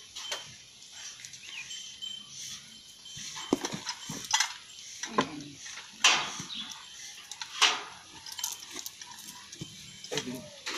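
Irregular clanks, knocks and scrapes of pipe and tools being handled at a bore-well head: a handful of sharp strikes, some trailing off in a short rasp.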